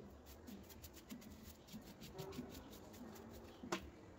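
Faint handling sounds of speaker parts being fitted into a PVC-pipe enclosure: light scattered clicks and taps, with one sharper click near the end.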